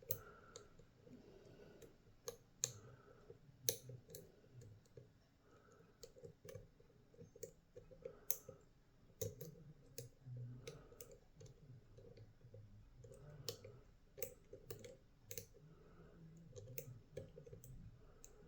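Faint, irregular clicks of a lock pick working the pin stacks of a DORMA six-pin euro cylinder during single-pin picking.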